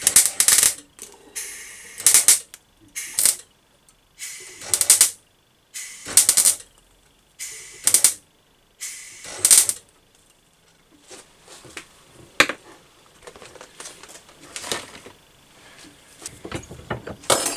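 MIG welder laying short tack welds on thin exhaust-baffle pipe to hold the pieces together: about seven crackling, spitting bursts of under a second each, a second or two apart. After that come quieter scattered taps and clicks.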